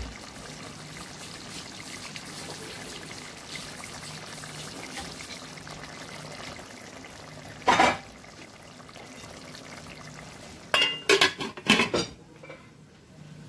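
Chicken curry bubbling steadily as it simmers in a pot. One sharp knock comes about eight seconds in, and a few knocks and clinks of pot and lid follow near the end.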